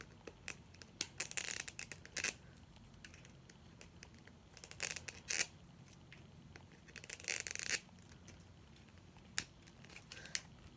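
Plastic packaging of a Mini Brands toy capsule ball crinkling and tearing in several short bouts as the ball is opened, with a few small clicks of the plastic in between.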